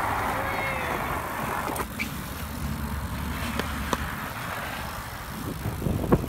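BMX bikes rolling along a concrete path: a steady rumble of tyres and wind on the microphone, with a few sharp clicks and knocks that grow busier near the end.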